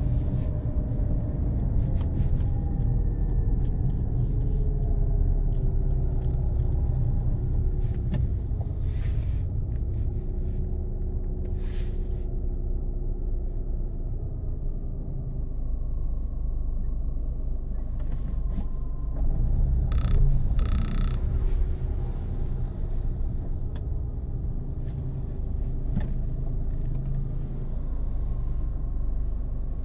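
A car's engine and road rumble heard from inside the cabin while driving in slow traffic, the engine note drifting up and down with speed. A few short clicks and a brief rattle come about two-thirds of the way through.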